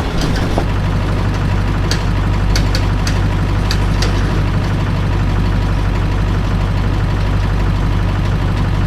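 A motor vehicle's engine running steadily with a low hum. There are a few light clicks in the first few seconds.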